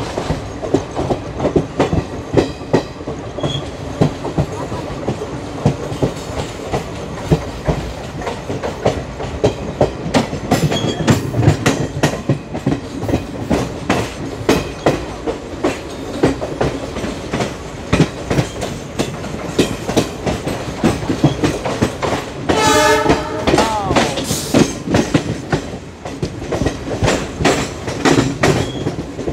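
Steady clickety-clack of ICF coach wheels running over the rail joints of a moving train. About twenty-two seconds in, a diesel train horn sounds for about a second and a half.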